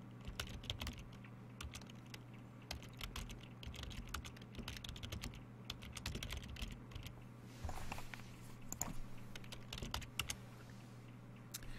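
Faint typing on a computer keyboard: irregular bursts of key clicks, with a steady low hum underneath.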